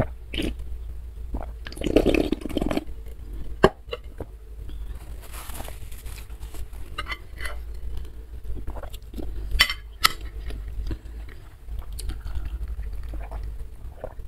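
Close-up eating sounds: a loud slurp of the broth drunk straight from a tilted ceramic plate about two seconds in, then a sharp knock as it is set down. After that, a metal spoon scrapes and clinks against the plate, with a couple of clear clinks a little before ten seconds.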